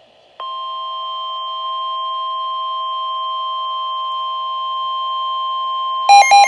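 NOAA Weather Radio warning alarm tone, a steady tone just above 1 kHz, heralding a river flood warning. It starts about half a second in, then gives way near the end to three short, loud multi-tone beeps.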